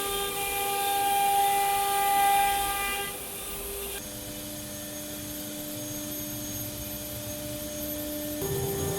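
9 kW HSD air-cooled CNC router spindle running with a steady whine. About four seconds in, the whine drops abruptly to a lower, quieter pitch, and near the end it steps back up.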